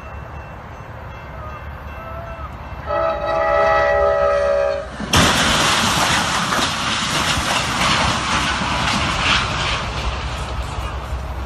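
Train horn sounding a held chord for about two seconds. Then a sudden loud crash as the train hits a car-carrier truck stopped on a level crossing, followed by several seconds of crashing and clattering wreckage.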